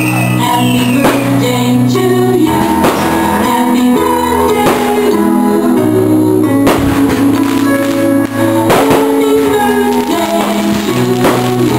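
Music with sustained chords that change every second or so, crossed by sharp hits about every two seconds.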